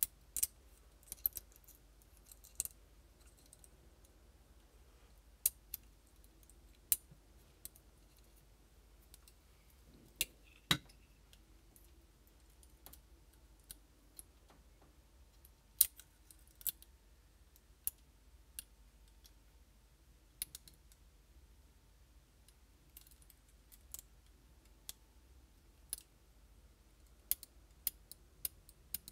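Scattered, irregular light clicks and taps from a paintball marker's trigger frame and its small parts being handled and fitted by hand.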